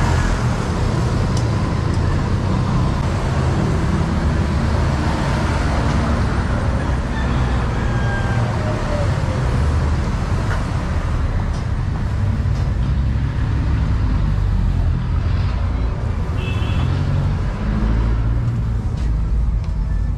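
Road traffic on a busy city street: cars and other motor vehicles passing as a steady low rumble. The upper hiss of the traffic fades over the second half.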